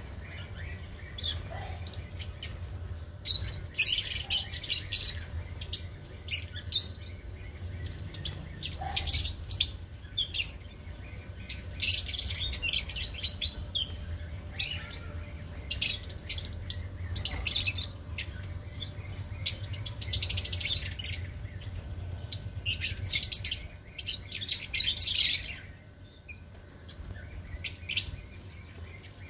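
Lovebirds chattering in shrill, high chirps that come in bunches every few seconds, over a steady low hum.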